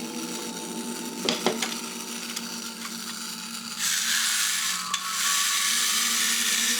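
Small all-plastic wind-up robot toy being wound with its plastic key, a few faint clicks, then about four seconds in its clockwork motor starts running with a steady gritty whir as the toy walks.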